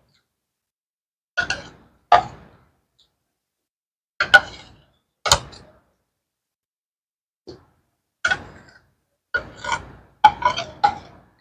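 A metal spoon clinking and scraping against a ceramic plate in short, sharp knocks with a brief ring, spaced a second or two apart, with a quicker run of clinks near the end.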